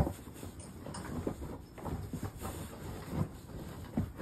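A large cardboard shipping box and the packing inside it being handled: irregular scraping, rustling and knocks, with a sharp knock right at the start.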